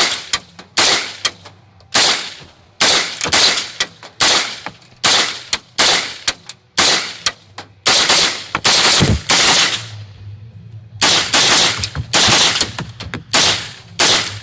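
Windham Weaponry carbon-fibre AR-15 rifle in 5.56 mm firing semi-automatic in a rapid string, about two shots a second, each report trailing off in an echo. The firing stops for about a second near ten seconds in, then several more shots follow.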